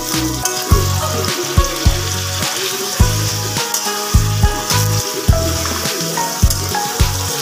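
Background music with a steady beat and a bass line, over the hiss of potato fries frying in hot oil in a wok, the fries still icy from the freezer.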